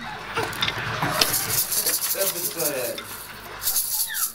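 Rustling and light clicks of a plastic baby toy and clothes being handled, with a short wavering coo from the infant about two seconds in. Near the end a baby rattle starts being shaken in quick even strokes.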